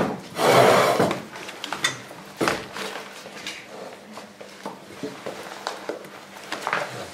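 Scattered knocks, clicks and rustling of things being handled at a meeting table, with a loud rustle in the first second.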